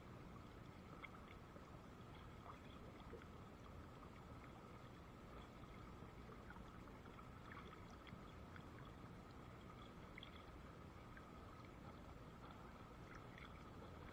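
Faint, steady rush of a shallow river flowing over rocks.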